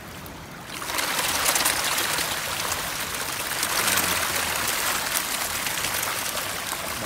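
A dense school of fish thrashing at the water's surface, a steady churning splash that starts about a second in.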